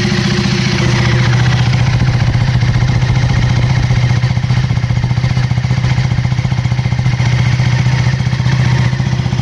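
KTM Duke 390's single-cylinder engine idling steadily just after a cold start, warming up with an even exhaust note.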